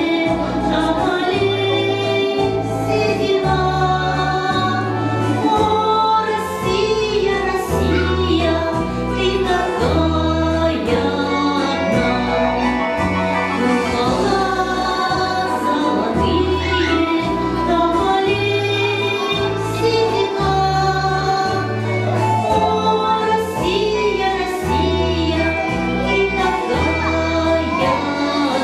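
A woman singing a slow song into a microphone over a recorded backing track. The backing has a regular, stepping bass line and what sounds like backing vocals.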